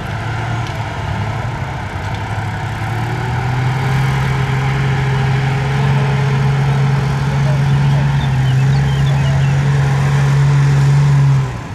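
Military truck's engine running steadily as it drives through deep mud, a low drone that slowly grows louder and stops abruptly near the end.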